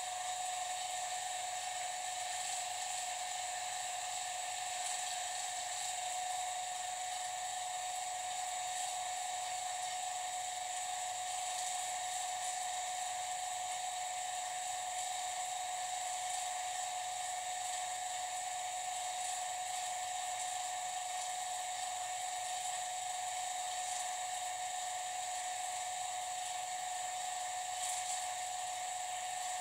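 Vacuum pump running steadily while evacuating the chamber, a constant whine over an even mechanical hiss.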